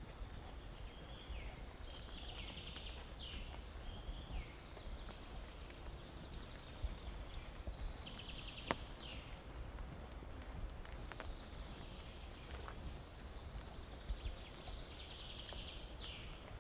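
A songbird singing the same short trilling phrase about four times, each ending in a quick downward stroke. Soft footsteps and a few sharp ticks sound in between.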